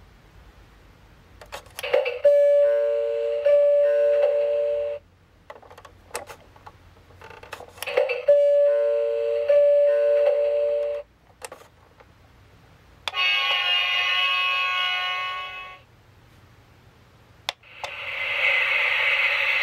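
Electronic door-opening chime from a toy N700 Series Shinkansen's sound unit: each press of a roof button clicks and sets off about three seconds of two alternating tones, heard twice. Later a different electronic effect with many tones plays for about three seconds, and near the end a steady hissing sound starts.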